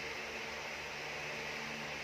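Steady low hum under an even hiss: background room noise, with no distinct event.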